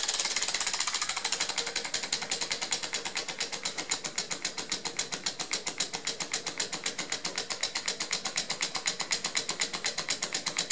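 3D-printed Stirling engine with glass syringe cylinders running on a spirit-lamp flame, its linkage and pistons giving a rapid, even clicking with each turn.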